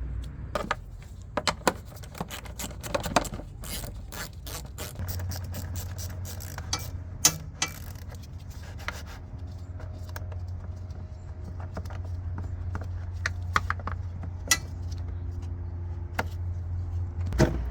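Scattered metallic clicks and clinks of a socket wrench on 10 mm bolts being removed under a car's hood, over a steady low hum.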